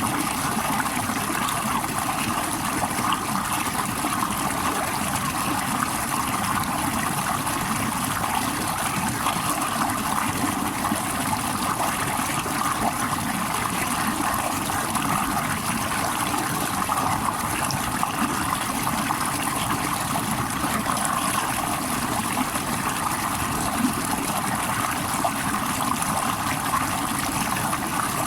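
Running water, a steady trickling flow with no break or change.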